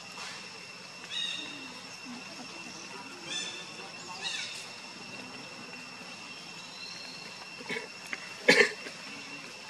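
A monkey gives one loud, short cough-like grunt about eight and a half seconds in, over a steady high insect drone, with a few brief high squeaks earlier on.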